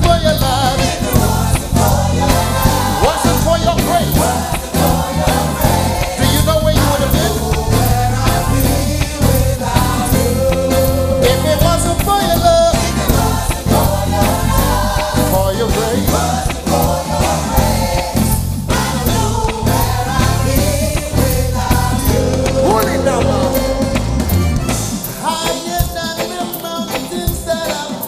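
Live gospel praise band playing a reggae-style medley, with a group of singers singing together over the band. Near the end the bass drops out, leaving the voices and the higher instruments.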